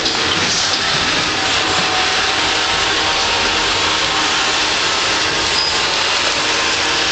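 Vacuum cleaner running steadily: a loud, even whoosh with a faint steady hum.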